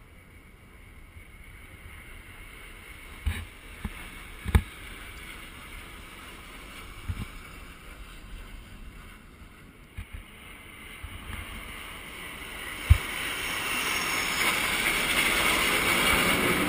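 Military jet passing overhead: a jet roar that swells from about two-thirds of the way in and is loudest near the end, over wind noise on the microphone. A few sharp knocks come in the first seconds and once more just before the roar builds.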